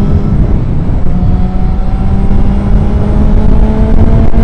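Motorcycle engine pulling steadily, its pitch slowly rising as the bike accelerates, under heavy wind rumble on the helmet-mounted camera's microphone.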